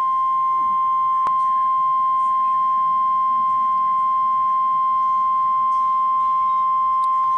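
NOAA Weather Radio's 1050 Hz Emergency Alert System warning alarm tone: one loud, steady high tone that cuts off abruptly at the end, signalling that the spoken warning message follows.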